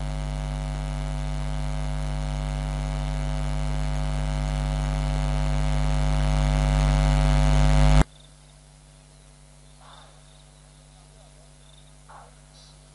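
Loud electrical mains hum with a buzzy edge, slowly growing louder, then cutting off abruptly about eight seconds in. A quiet outdoor background follows, with faint insect chirps and two short animal calls.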